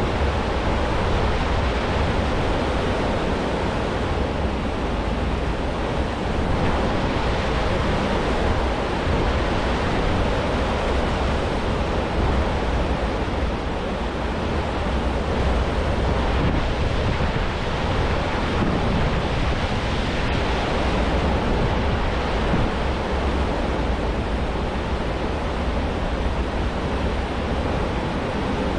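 The churning wake of a large cruise ship, a steady rush of foaming water, mixed with wind buffeting the microphone as a low rumble.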